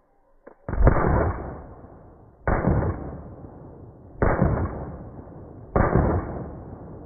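Beretta 92 Elite LTT 9mm pistol firing, played back slowed down: four shots about a second and a half apart, each lowered in pitch and fading out slowly.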